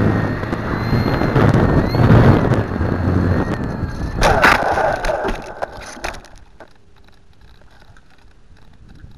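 Onboard sound of a radio-controlled SE5 model biplane flying low: wind rush on the microphone over a steady motor whine. About four seconds in it hits the ground nose-first with a loud crash and a falling whine, then a few knocks, and after that only faint noise.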